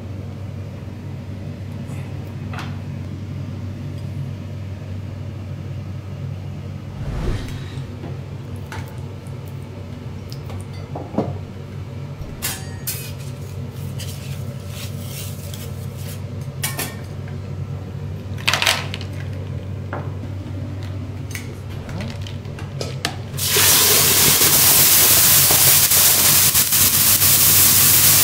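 Metal spatula, tongs and spoon clinking and scraping against a steel teppanyaki griddle and a china plate, in scattered sharp clinks over a steady low hum. About 23 seconds in, a sudden loud, steady hiss of steam starts up off the hot griddle around a steel dome cover.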